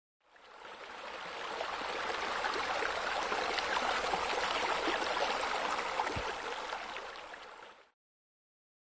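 Running water, an even splashing stream sound that fades in over the first second or two and fades out just before the end.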